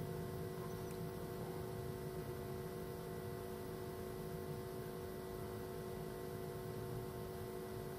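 Steady electrical hum made of several faint constant tones over a soft hiss: background room tone, with no distinct handling sounds.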